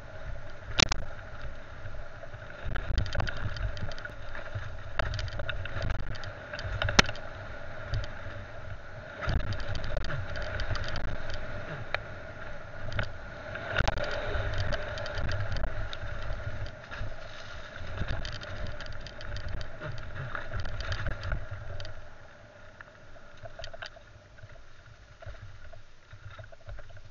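Wind buffeting and rumble on a camera riding fast down a dirt trail, with many small rattles and knocks from the rough ground. It grows quieter for the last few seconds.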